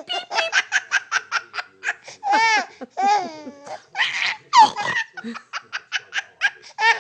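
Baby laughing hard. Quick runs of short laughs, about seven a second, come at the start and end, with long high squeals that rise and fall in the middle.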